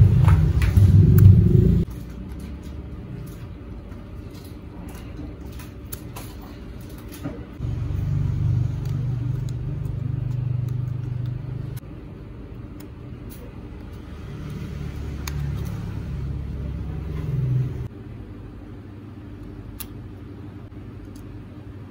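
A low rumble that swells and fades three times, with light clicks and taps of plastic and wooden parts being handled.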